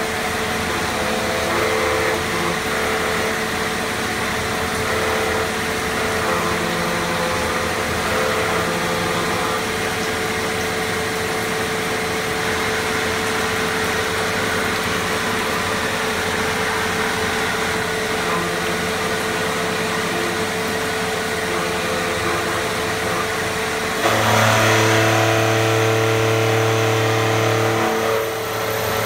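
CNC milling machine finish-cutting a camshaft's lobes on a 4th-axis rotary: a steady spindle whine over the noise of the cutter and flood coolant spraying the part. About four-fifths of the way through it gets louder for a few seconds, with a deep hum added.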